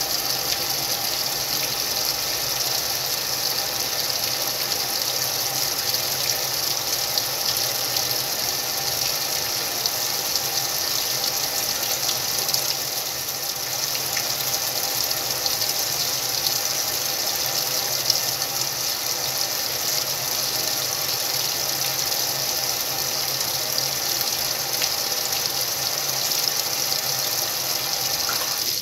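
Whirlpool washing machine filling with water, a steady rushing hiss of water pouring into the drum with a faint hum underneath, which cuts off suddenly at the end.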